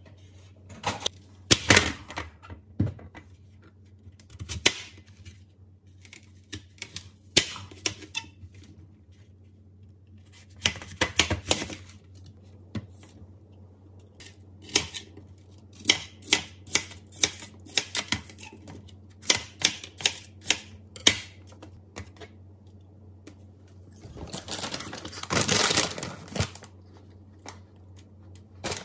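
A knife peeling and cutting a fresh apple on a plastic tray: irregular crisp clicks and crunches as the blade goes through the apple and knocks the tray. A low steady hum runs underneath, and a longer rustle comes about three-quarters of the way through.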